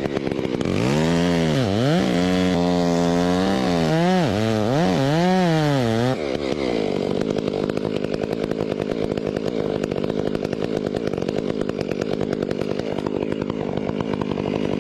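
Gas chainsaw cutting through a tree trunk. Its engine speed rises and drops over and over for the first several seconds as the chain loads and frees in the wood, then runs steady at high revs.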